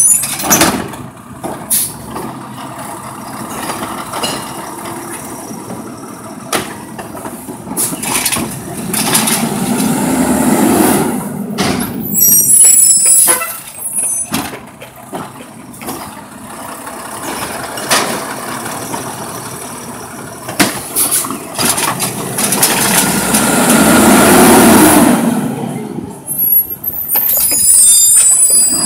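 Natural-gas automated side-loader garbage truck creeping along the curb: the engine revs up twice in rising swells, with scattered clanks and knocks, and the air brakes hiss briefly at the start and again near the end as it stops at the carts.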